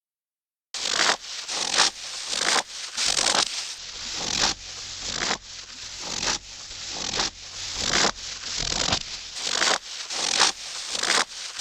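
Footsteps crunching through snow at a steady walking pace, a little more than one step a second. Each step is a grinding crunch that builds and cuts off sharply. The steps start about a second in, out of silence.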